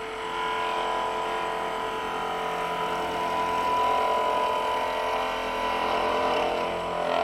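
Skew chisel cutting a bead on a spindle turning in a wood lathe: a steady cutting sound with a whining tone over the lathe's hum. It starts just after the beginning and stops near the end as the cut finishes.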